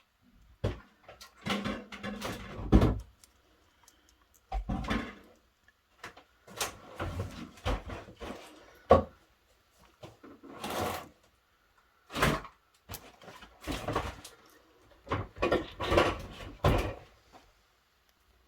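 Clicking and clattering of small keyring parts being handled and fitted together by hand, in short bursts of a second or less with pauses between.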